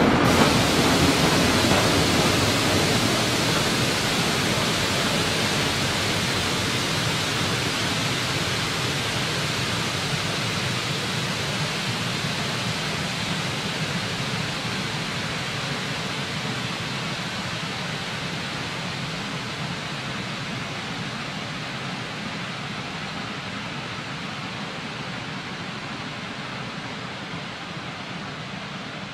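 Shay geared steam locomotive working hard upgrade and pulling away. Its exhaust is a steady noise with no separate beats, fading steadily as the train recedes.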